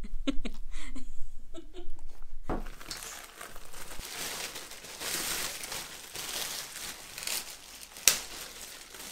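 Large black plastic bin bag crinkling and rustling as it is shaken open and spread out, starting about two and a half seconds in, with one sharp snap of the plastic near the end.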